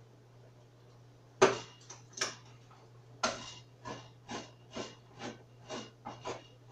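A utensil knocking and scraping in a pan on the stove: one loud clack about a second and a half in, a few scattered knocks, then a steady stroke about twice a second, as of stirring.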